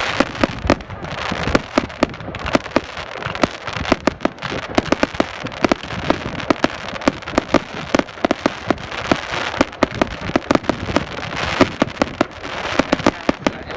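Fireworks display: a continuous barrage of sharp bangs and pops, several a second, over a dense crackle.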